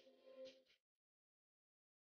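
Near silence. A faint, brief snatch of music-like held tones in the first second cuts off abruptly.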